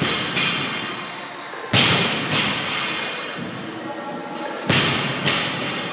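Barbells loaded with rubber bumper plates dropped onto the gym floor: two heavy thuds, about two seconds in and near the end, each followed by a smaller knock as the plates bounce.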